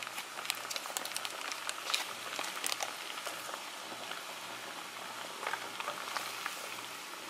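Garlic butter sizzling in a frying pan on low heat as a stick of butter melts into it: a steady crackling hiss with many small pops.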